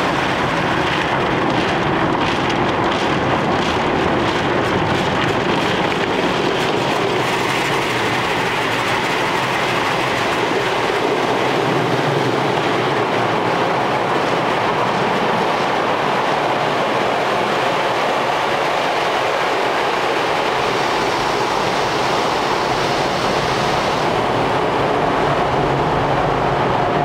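Automatic car wash equipment working over the car, heard from inside the cabin as a loud, steady rushing and rumbling noise.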